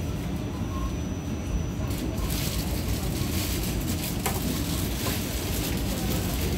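Inside an R46 subway car running through a tunnel: a steady rumble and rush of wheels on the rails. A hiss swells about two seconds in, and a couple of sharp clicks come from the track near the end.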